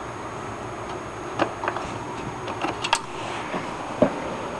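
A few light clicks and taps from hands handling parts inside an open desktop computer case, over a steady background hiss.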